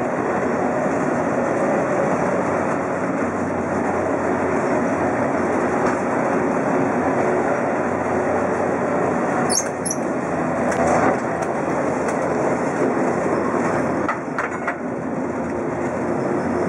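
Steady running noise of an old wooden-bodied tram heard from inside the car: wheels rumbling on street rails with the body rattling. A brief high wheel squeal sounds a little under ten seconds in as it rounds a curve, and a few sharp knocks follow near the end.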